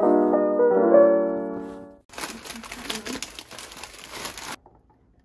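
Soft piano background music that stops about two seconds in, followed by a couple of seconds of crinkling from the plastic wrapper of a packet of ladyfinger biscuits being handled and opened.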